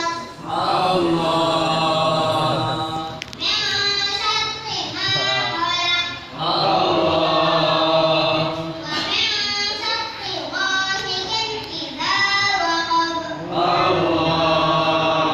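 A child's voice chanting unaccompanied in long, drawn-out melodic phrases, each a couple of seconds long, with short breaks between them.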